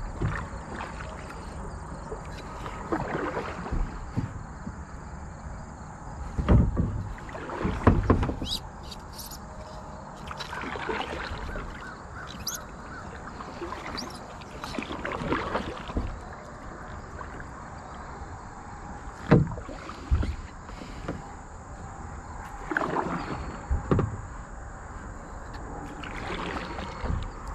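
Kayak paddle strokes dipping and splashing in river water at an uneven pace, a few strokes much louder than the rest.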